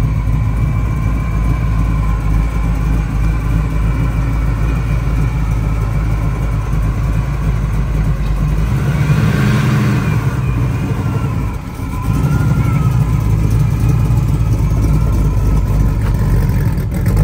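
Classic Ford Mustang fastback's engine running at idle, revved up once about halfway through, then running louder as the car pulls away.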